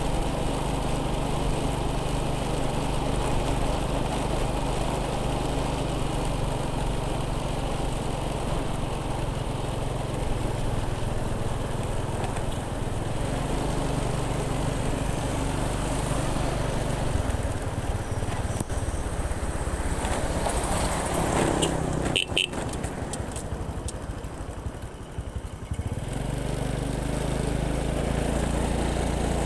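Motorbike engine running steadily under road and wind noise. About twenty seconds in, the engine drone falls away and a few sharp clicks sound, then the engine drone comes back near the end.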